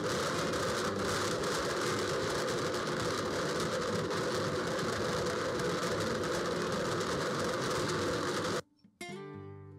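Countertop blender running steadily, its blades grinding frozen watermelon chunks into slush. It cuts off abruptly near the end, and acoustic guitar music starts just after.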